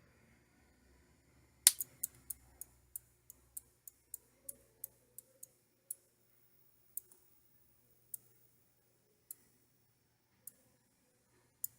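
Sharp clicks from an Antec NEO ECO 520C ATX power supply, the unit's abnormal clicking noise. A loud one comes about two seconds in, then they run at about four a second and slow steadily to about one a second near the end.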